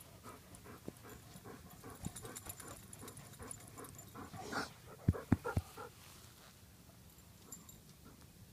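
Dog panting close to the microphone, with rustling as it is petted. Three sharp thumps come just after the middle.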